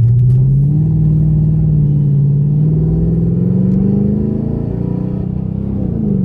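A vehicle engine accelerating: its note climbs steadily for about four seconds, then drops and levels off near the end.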